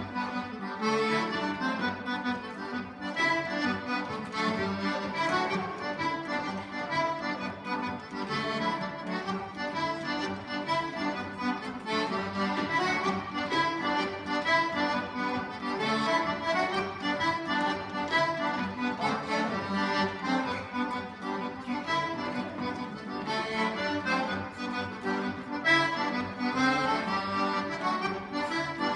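A squeezebox of the accordion family playing a traditional dance tune without a break, its notes moving in a steady rhythm.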